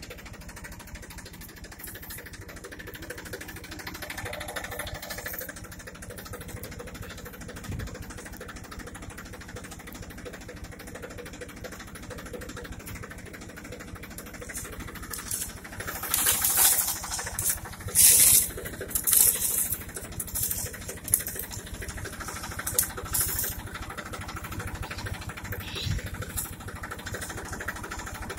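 Tractor engine running steadily at idle. From about halfway, a run of loud, short noises sounds over it.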